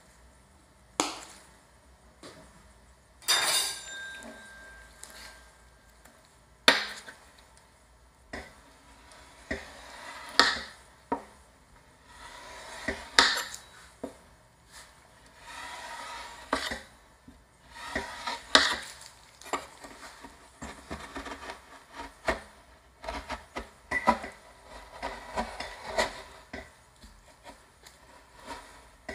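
Steel spatula scraping and clinking on the frozen surface of an ice cream roll cold plate, cutting the frozen ice cream sheet into strips, in short irregular strokes with a brief metallic ring about three seconds in. Near the end the spatula scrapes a strip up off the plate into a roll.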